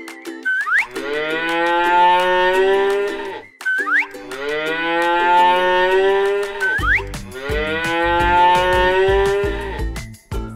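A cow mooing three times in a row, each moo long and drawn out, over light background music. A low beat joins the music about two-thirds of the way through.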